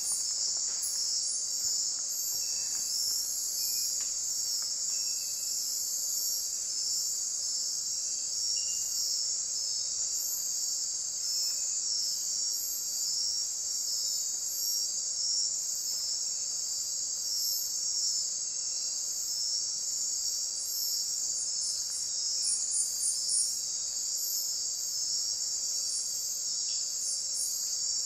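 Night insect chorus of tropical forest: a dense, steady high trilling with a faster pulsing chirp layered above it. A few faint short high notes come through in the first half.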